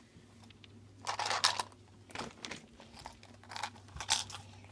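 Hands handling and prying at a plastic surprise egg: crinkling and crunching plastic in a few short bursts, the loudest about a second in.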